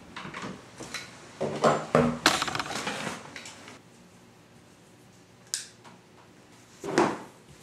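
Household objects being handled: a run of knocks and rattles for a couple of seconds, then a single click, and a louder knock near the end.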